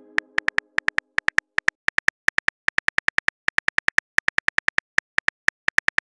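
Phone keyboard key clicks as a message is typed, a fast run of short, sharp taps at about seven a second with a few brief pauses.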